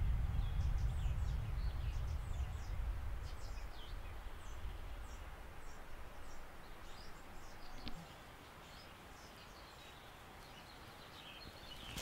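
Small forest birds chirping repeatedly with short, high calls, over a low rumble that fades away during the first eight seconds.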